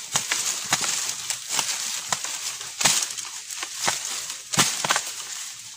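Dry bamboo leaf litter and soil crunching under irregular strokes, roughly two a second, as the ground at the foot of a bamboo clump is chopped and dug to free a bamboo shoot.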